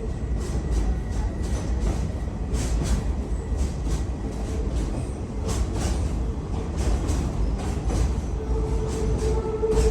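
Passenger train running on rails, heard from inside the caboose while passing through a tunnel: a steady low rumble of the wheels with irregular clicks and clacks. A steady tone, likely wheel squeal, comes back in near the end.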